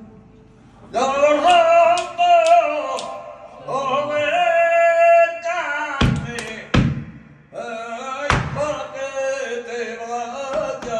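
Flamenco singing (cante): a singer holding long, drawn-out notes that waver and bend in pitch. About six seconds in, three loud sharp hits break in, a dancer's heel stamps on the wooden stage, before the singing resumes.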